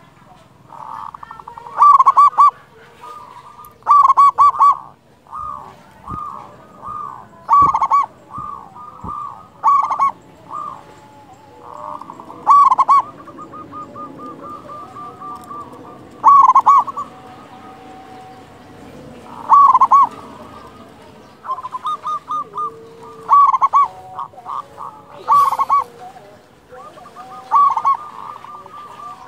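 Zebra dove (perkutut) cooing: repeated phrases of quick, rolling notes, loud ones every few seconds with softer cooing between them.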